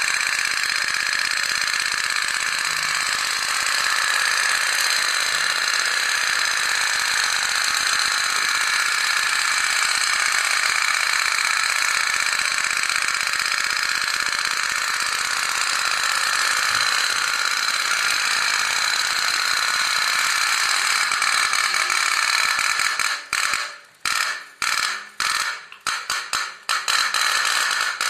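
Otok-otok pop-pop steam boat toy running: its aluminium boiler, heated by a cotton wick burning cooking oil, makes a fast, continuous tok-tok-tok clicking as steam pulses push the boat along. Near the end the clicking falters into short bursts with brief gaps.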